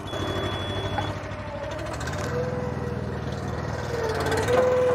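Petrol engine of a tracked spider lift running and driving its hydraulics as the automatic outriggers swing out and lower onto the ground. About two seconds in the engine note shifts and a steady hydraulic whine comes in, growing louder near the end.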